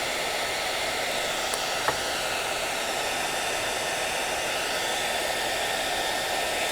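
Handheld hair dryer running steadily, its fan blowing a stream of air upward with a steady whirring hiss. A faint click about two seconds in.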